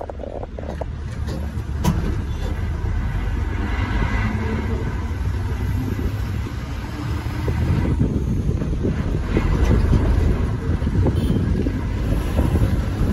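Moving bus: a steady low rumble of engine and road noise, growing a little louder about eight seconds in.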